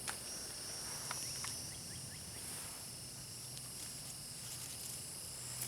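Steady high-pitched insect chorus in the woods, with a few footsteps crunching on the trail in the first second and a half.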